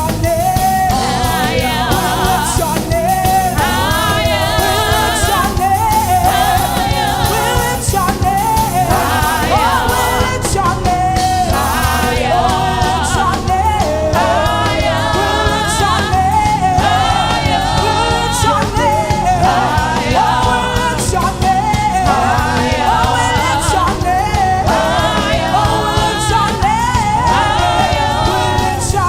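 Gospel song: sung vocal phrases over a band with drums and bass.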